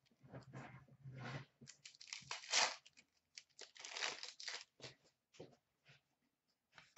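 Hockey trading cards and their foil pack wrapper rustling and crinkling in the hands as a pack is sorted through, in short irregular scrapes.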